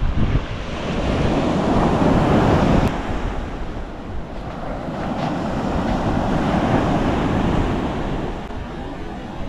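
Ocean surf breaking and washing up a sandy beach, swelling and easing twice, with wind rumbling on the microphone.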